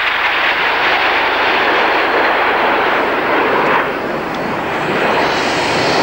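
Jet noise from the Red Arrows' nine BAe Hawk T1 jets flying in formation: a steady, loud rush that drops lower in pitch and eases slightly about four seconds in.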